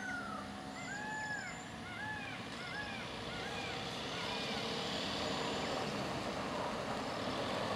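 A bird calling in a quick series of short arched whistles for the first few seconds, over the engine and tyres of an approaching pickup truck that grows gradually louder.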